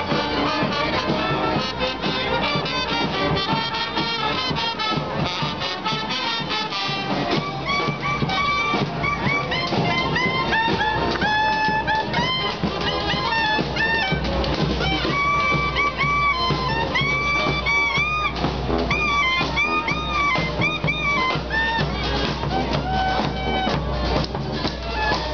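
Street brass band playing a loud tune: horns over drums, with long held notes that bend up and down in the second half and a steady low bass joining about halfway through.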